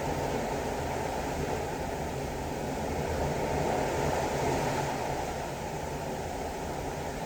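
Ocean waves heard from a cruise ship's balcony: a steady rush of water that swells a little about three to four seconds in.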